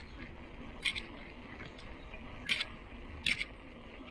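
Bicycle being ridden over a concrete road: a steady low rumble of wind and tyres, with short sharp clicks or creaks from the bike coming irregularly, about four in the stretch.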